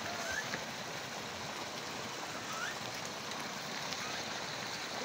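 Steady rushing of a small mountain stream spilling under a stone footbridge, with a couple of faint, short, rising chirps over it.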